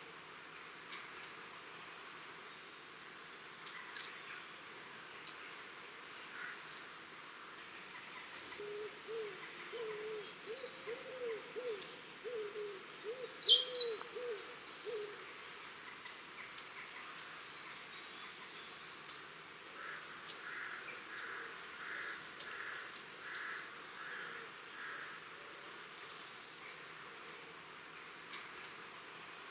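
Long-tailed tits calling: many short, thin, very high calls, frequent throughout, with one louder call about 13 seconds in. A low, wavering hooting call from another bird joins from about 9 to 15 seconds.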